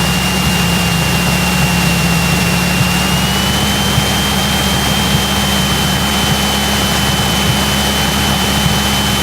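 Cessna 172's four-cylinder piston engine and propeller running at a steady power setting, heard from inside the cockpit. A thin, steady high whine sits over the drone.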